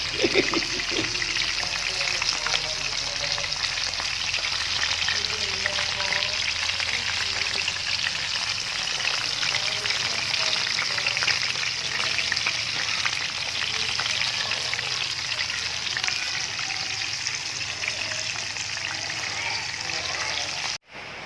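Battered chicken pieces deep-frying in hot oil: a steady, dense sizzle and crackle that cuts off abruptly just before the end.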